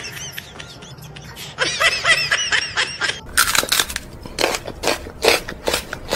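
A woman laughing in breathy bursts, about two a second, starting about three seconds in. Before it comes a brief run of high, warbling voice sounds.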